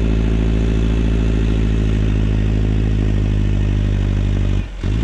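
Massey Ferguson tractor's diesel engine running at steady revs under load while plowing deep snow with a rear blade. The sound cuts off suddenly near the end.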